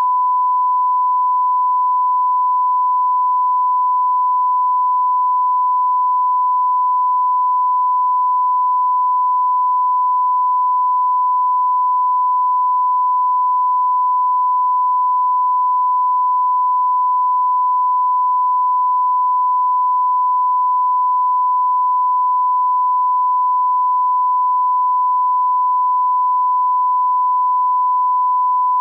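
Steady 1 kHz sine-wave line-up tone played with SMPTE colour bars: a single unbroken pure tone at constant level, the reference tone used to set audio levels at the head of a tape.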